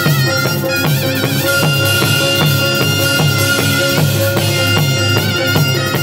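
Taepyeongso, the Korean shawm, playing a loud wavering melody over a steady beat of a set of Korean buk drums struck with wooden sticks.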